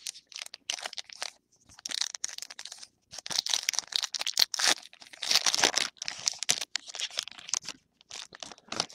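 A 2011 Topps Lineage trading-card pack's foil wrapper crinkling and tearing as the pack is opened, in a run of irregular crackly rustles that is loudest in the middle.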